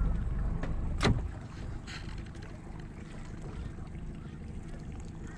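Sounds aboard a small boat on calm water: a low rumble that drops away after a sharp knock about a second in, then a lighter tap near two seconds and a fainter steady background.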